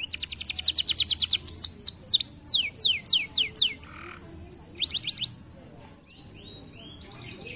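Canary singing: a fast trill of quick down-sweeping notes, then slower falling whistles and a few short notes, breaking off about five seconds in before a faint trill starts again near the end.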